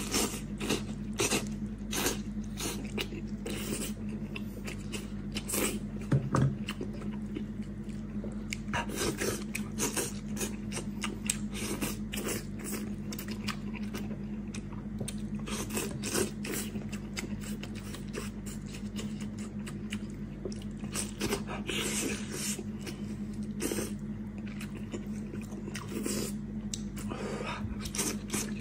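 Close-miked eating: a person biting, chewing and gnawing meat and cartilage off pieces of a braised animal head, with irregular wet clicks and crunches throughout. A steady low hum runs underneath.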